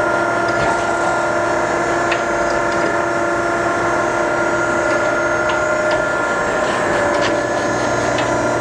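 Okamoto ACC-1224DX surface grinder running with its hydraulic pump on, the wheel spindle turning and the table traversing: a steady mechanical hum with several held tones and a few faint clicks.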